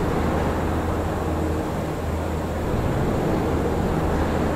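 General Motors factory floor ambience: a steady mix of machinery noise with a low hum underneath, at medium activity.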